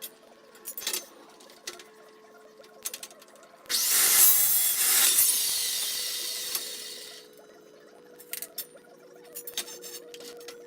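A carbide-tipped cold cut saw cutting through steel square tubing for about three and a half seconds. It starts suddenly and fades out. Light clanks and knocks of steel tubing being handled come before and after.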